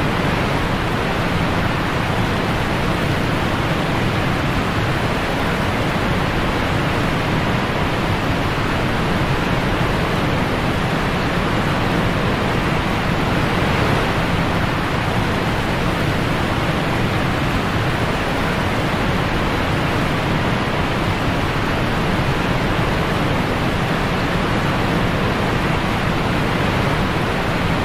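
Whitewater rapids rushing loudly and steadily, an even noise of churning river water without a break.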